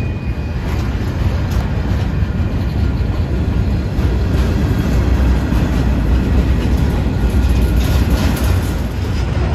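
Canadian Pacific freight train cars rolling past close by: a steady, loud rumble with occasional wheel clicks.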